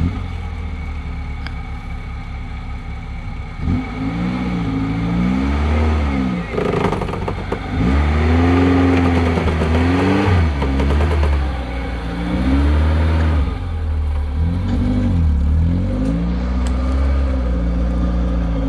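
Off-road 4x4 vehicle's engine revving under load, its pitch rising and falling in repeated surges as it works along the trail, over a steady low rumble.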